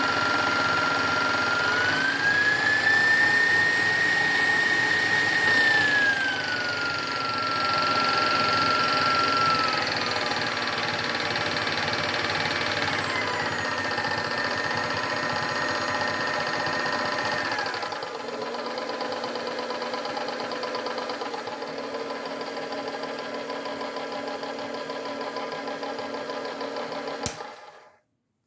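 KitchenAid appliance's electric motor running with a steady whine and a fast clicking, which the owner is not sure is normal. The motor speed steps up early on and back down twice. A click near the end comes as it is switched off.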